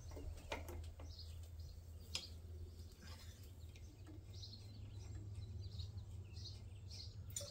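Quiet hand work on a stopped diesel generator's fuel fittings: a few faint clicks of a wrench and fittings, with faint short chirps, which may be birds, over a low steady hum.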